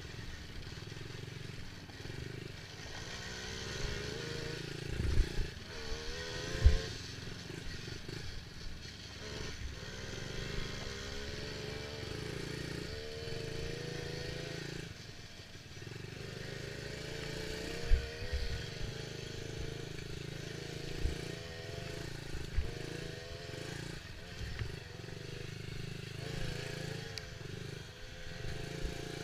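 Dirt bike engine being ridden, its pitch rising and falling again and again as it revs up and drops back, with a few sharp thumps.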